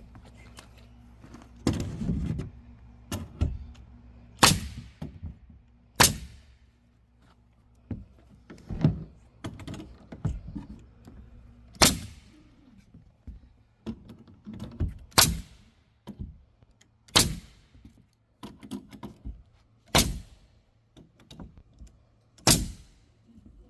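Air-powered palm nailer driving nails into wood: about eight loud, sharp strikes at uneven intervals of one to three seconds, with lighter knocks in between.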